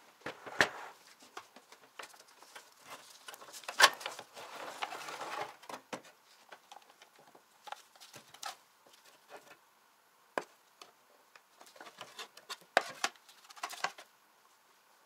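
Sheet-metal lid and drip tray of an old electric shashlik maker being handled: scattered clicks and knocks of thin metal, with a stretch of scraping about four to six seconds in.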